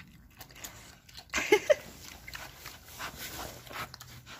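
Pig eating from a feed pan, chewing and crunching pumpkin and cantaloupe, with a short, loud rising grunt about a second and a half in.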